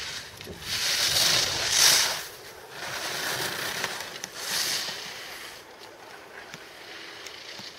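Skis scraping and hissing across the snow as a racer carves turns, the swish swelling several times with the turns, loudest about one to two seconds in, then fading away.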